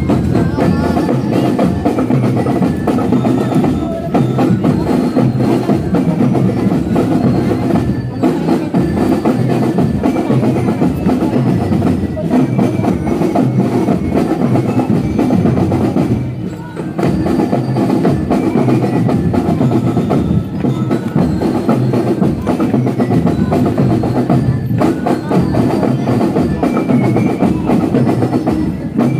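Marching band playing a march: drums keep a steady beat under a bell-like melody, with a short break in the playing about sixteen seconds in.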